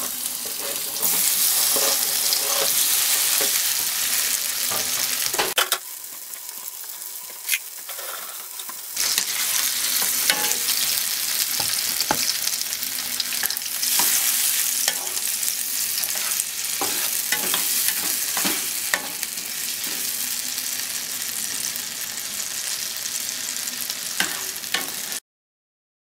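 Diced tomatoes sizzling in butter in a nonstick frying pan, stirred with a spatula that scrapes and taps against the pan. The sizzle jumps up about a second in as the tomatoes go in, drops lower for a few seconds partway through, and cuts off suddenly near the end.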